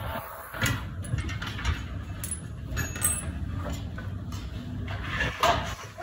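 Scattered light knocks and clinks of a 1950s Eletromar (Westinghouse-licensed) metal desk fan and its steel wire guard being handled and shifted about on a granite countertop, over a low steady rumble.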